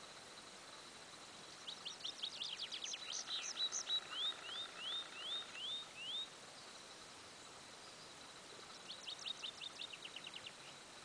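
A songbird singing two phrases: a long run of fast high trills that ends in a series of slurred rising notes, then about two seconds later a shorter trilled phrase.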